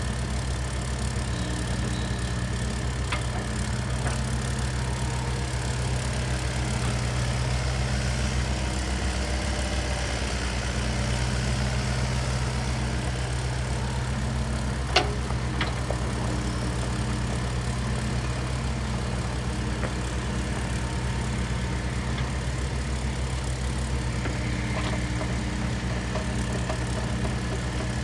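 2012 Volvo EC55C mini excavator's diesel engine idling steadily, with one sharp click about halfway through.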